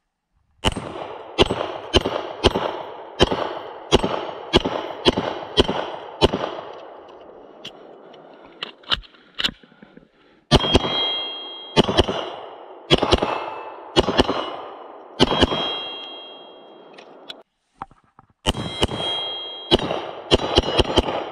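Canik SFx Rival 9mm pistol firing in rapid strings: about a dozen quick shots in the first six seconds, then a slower run of shots from about ten seconds in, and another fast run near the end. Steel targets ring with a clear metallic tone after hits.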